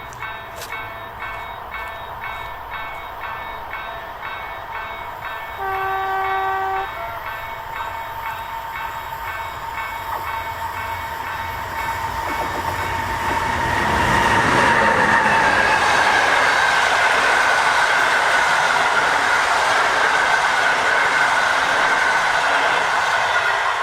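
Level-crossing warning bell ringing about twice a second, then a horn blast of about a second from the SU160 diesel locomotive about six seconds in. From about twelve seconds the train approaches and passes loudly over the crossing, a steady rush of wheels on rail.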